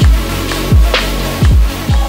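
Electronic dance music with a heavy, punchy bass drum and sharp snare hits over held synth tones.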